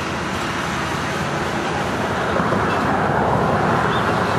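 Steady downtown road traffic, with a vehicle passing that grows louder in the second half.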